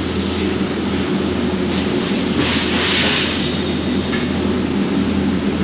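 Flatbed laser cutter cutting quarter-inch steel plate amid steady factory machine hum. A louder burst of hissing comes about two and a half seconds in and lasts under a second.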